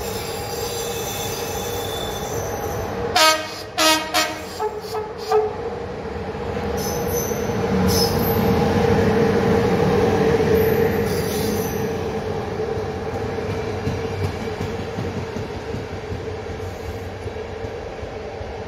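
Romanian class 40 (EA) electric locomotive pulling out with its coaches, with a steady hum throughout. A string of short horn toots comes about three seconds in. The running noise then rises as the locomotive and coaches pass close and fades as the train rolls away.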